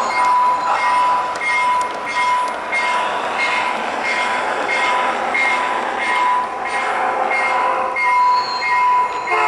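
1:29-scale model train rolling along garden track, heard from on board a boxcar: a steady high whine that swells and fades about twice a second, with light clicking throughout.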